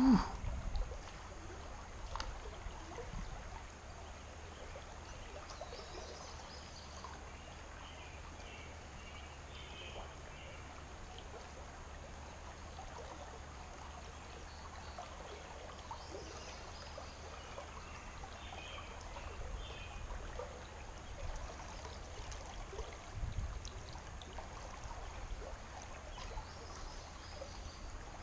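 Steady, faint flowing river water.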